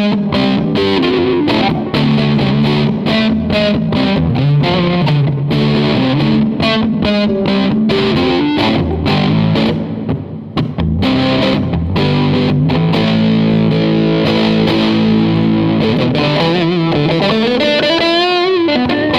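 Electric guitar, a Fender Stratocaster, played through a 1959 Fender 5F6-A tweed Bassman tube amp with four 10-inch speakers: a run of riffs and chords, with wavering bent notes near the end.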